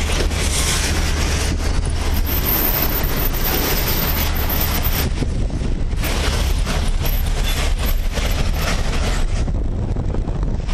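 Steady engine and road noise heard from inside a moving vehicle: a constant low rumble under an even hiss.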